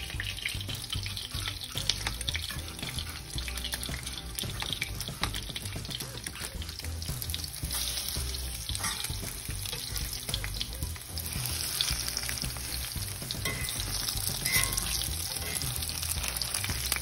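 Panko-breaded Spanish mackerel pieces frying in olive oil in a cast-iron skillet: a steady sizzle with fine crackling throughout.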